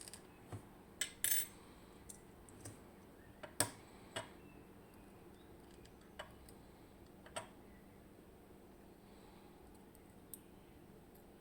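Small metal parts of a Miwa EC lock cylinder clicking and clinking as it is taken apart. The taps are scattered and irregular, most of them in the first four seconds, then only a few.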